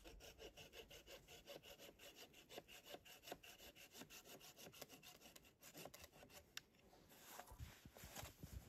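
A hand saw cutting through a birch pole in quick, even strokes, stopping shortly before the end. Near the end, footsteps crunch through deep snow.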